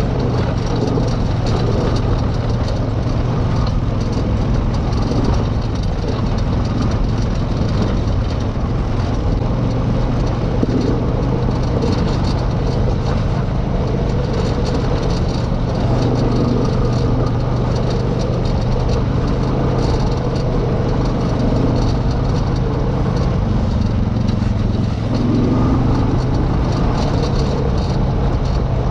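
Off-road vehicle engine running steadily, with a constant low hum and a rattling noise over it.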